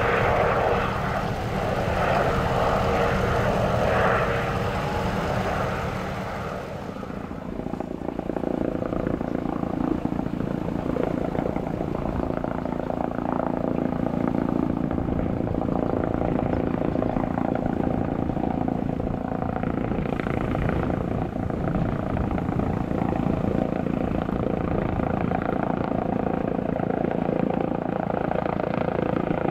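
Medical helicopter's turbine engine and rotor running steadily, changing in tone about seven seconds in.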